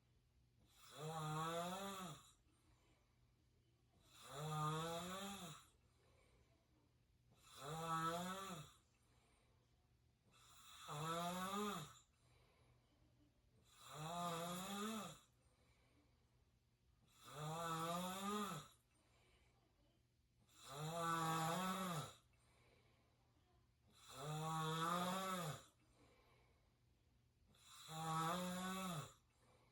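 A person snoring through an open mouth, nine snores about every three and a half seconds. Each snore is a rough, pitched tone that rises a little and lasts a second or two, with quiet breathing gaps between.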